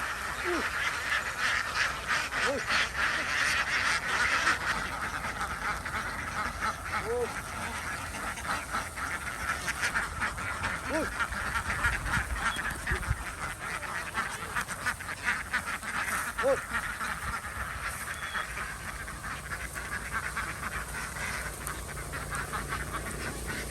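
A flock of ducks quacking constantly, many calls overlapping.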